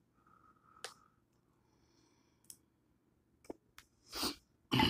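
Quiet eating sounds from a person eating shrimp: a few faint mouth clicks, then two short breathy puffs of noise near the end, the second the louder.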